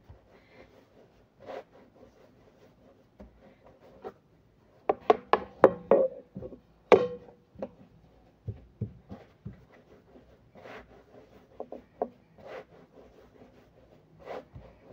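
Long thin wooden rolling pin (oklava) rolling out stiff dough on a granite countertop: intermittent wooden knocks and rubbing, with a cluster of sharper knocks about five to seven seconds in.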